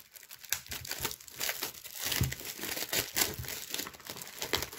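Plastic shrink wrap being torn and peeled off a cardboard box by hand, crinkling and crackling irregularly.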